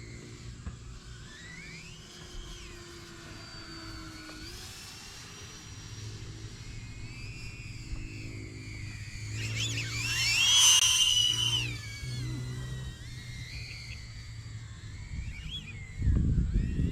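Electric motor and propeller whine of an E-flite Turbo Timber Evolution RC plane in flight, rising and falling in pitch as it manoeuvres and growing loud as it passes close about ten seconds in. A burst of low rumble comes near the end.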